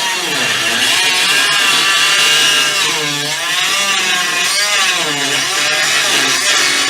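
Handheld power tool running continuously on sheet metal, its whine dipping and rising in pitch as it is pressed into the work and eased off.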